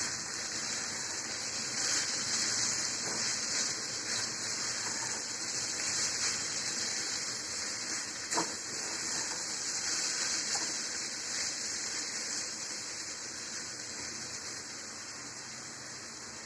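Cauliflower, carrot and potato frying in oil in a pan with freshly added chopped onion, garlic and green chilli, sizzling steadily. One light knock about eight seconds in.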